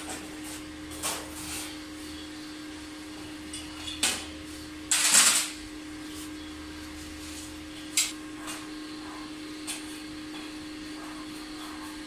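Scattered knocks and handling sounds of a metal pipe cart frame and a clear side panel being fitted, with one louder scraping rush about five seconds in, over a steady hum.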